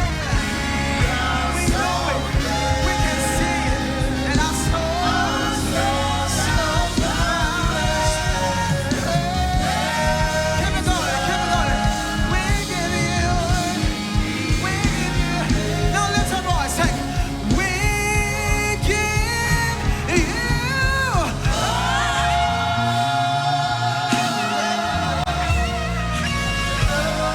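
Live praise-and-worship band with singers: voices singing over full band accompaniment with a steady beat. The bass drops out briefly about two-thirds of the way through.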